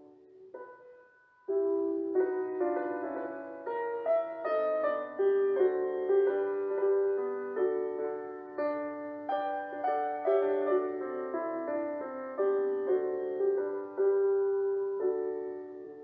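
Soft piano background music: after a near pause, a new phrase of struck notes begins about a second and a half in and fades away near the end.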